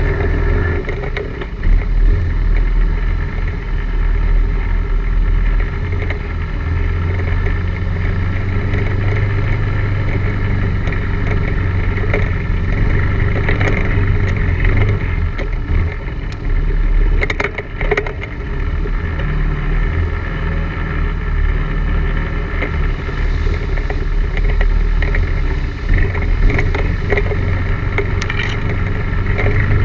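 ATV engine running while riding a rough dirt trail, its drone swelling and easing with the throttle. A cluster of sharp knocks and rattles comes a little past halfway.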